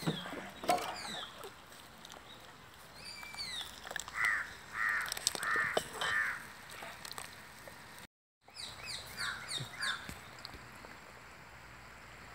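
Crows cawing: a run of four caws about four seconds in and two more near the end, with small birds chirping in quick falling notes between them. A few sharp clinks near the start, from the steel ladle against the pot.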